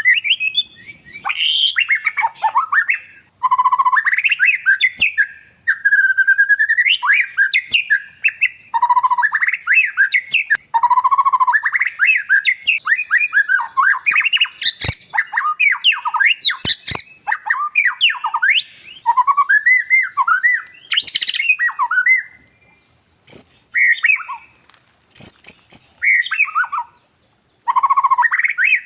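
Oriental magpie-robin (kacer) singing continuously: a long run of varied whistled and chattering phrases, with a few short breaks near the end and occasional sharp clicks.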